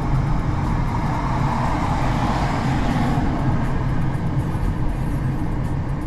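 Steady road and engine noise of a moving car heard from inside the cabin, with a low hum. A broader rushing swell rises and fades about two seconds in.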